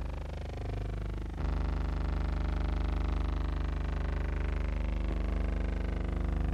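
A steady low electrical hum with a buzz of even overtones, the background hum of a silent film transfer, and no other sound. It jumps louder about a second and a half in.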